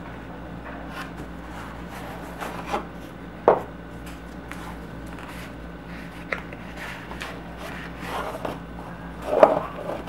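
A cardboard carton handled on a wooden tabletop: rubbing and light knocks as a plastic-wrapped block of cream cheese is slid out of it. There is a sharp knock about three and a half seconds in and a louder bout of knocking and rustling near the end.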